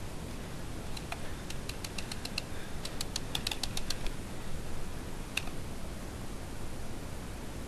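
Paintball markers firing: a quick run of sharp cracks, several a second, in the first half, then a single shot later, over a low wind rumble on the microphone.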